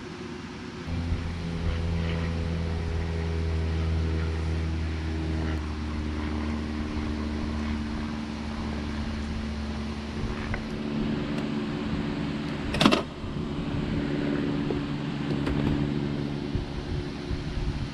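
A motor hums steadily from about a second in, with a deep low drone and several even pitches above it. A single sharp click comes about thirteen seconds in.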